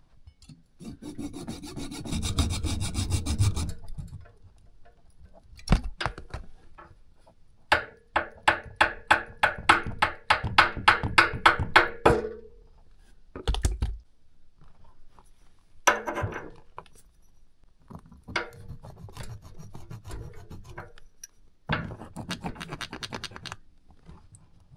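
Hacksaw cutting through small-bore copper heating pipe just below a radiator valve, in several bouts of back-and-forth strokes. The longest bout is an even run of about four strokes a second near the middle.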